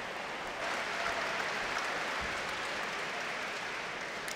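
Crowd applauding the announced winner. The applause swells about half a second in and then goes on steadily.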